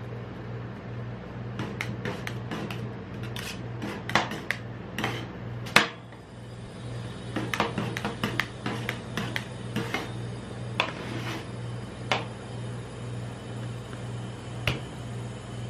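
Metal spatulas chopping and scraping ice cream on the frozen steel plate of a rolled-ice-cream pan: quick runs of sharp metal taps and scrapes for about the first ten seconds, then a few single taps. A steady low hum runs underneath.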